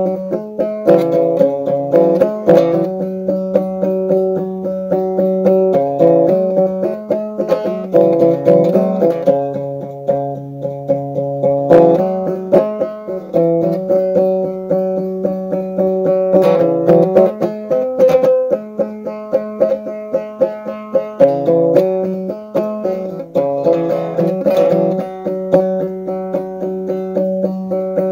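A krar, the Ethiopian lyre, plucked in a quick, steady run of notes that repeats a short melody, without singing.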